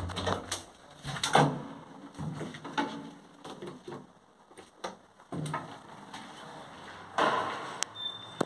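Doors of a Zremb residential elevator being worked: a run of clunks and knocks, the loudest about a second and a half in, as the hinged landing door is handled, then a half-second rush of the sliding car doors moving about seven seconds in, followed by a few sharp clicks.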